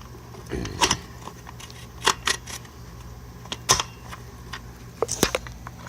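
Sharp clicks and knocks of parts of a 1979 Kirby Tradition upright vacuum being handled and fitted together during reassembly, about half a dozen separate clicks, the loudest a little under one second, two seconds and almost four seconds in.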